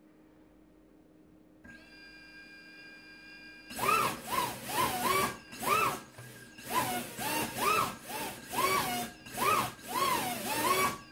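Brushless drone motor driven by a 32-bit 4-in-1 ESC. A steady electric whine starts about two seconds in. From about four seconds the motor is revved up and down about a dozen times in quick throttle blips, each a whine that rises and falls, loading the ESC for an electrical noise test.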